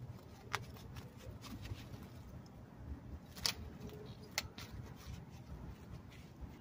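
A scatter of sharp clicks and soft taps as a cat bats and mouths a mouse on artificial turf, loudest once about half a second in and twice between three and a half and four and a half seconds in, over a low steady hum.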